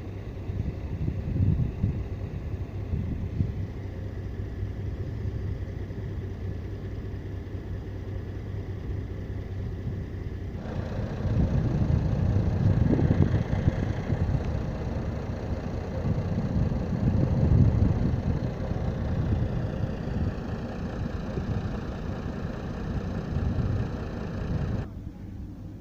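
A diesel passenger train's engine running in the station with a steady low rumble. It grows suddenly louder about eleven seconds in, and a whine falls in pitch near the end.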